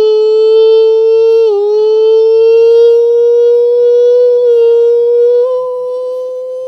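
A man's voice holding one long, high, unbroken note. The pitch slides slowly upward, with a brief dip about a second and a half in, and the note gets quieter near the end.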